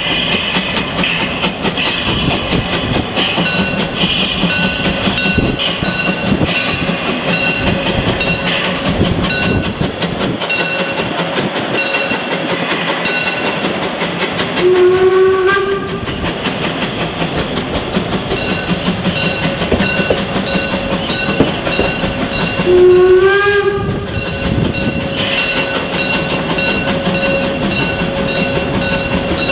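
Narrow-gauge steam locomotive's whistle sounding two blasts, each about a second and a half long and roughly eight seconds apart, over the steady rumble and clatter of the train's carriages rolling along the track, heard from inside a carriage.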